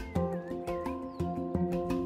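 Gentle instrumental background music with a steady beat and held notes, with short warbling high notes over it near the start.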